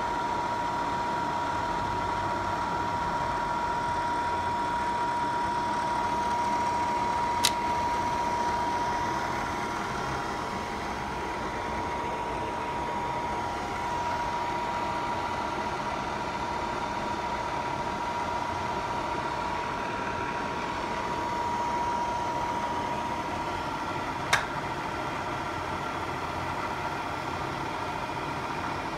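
A machine running steadily with a constant high whine over a broad hum. Two sharp clicks stand out, about 17 seconds apart.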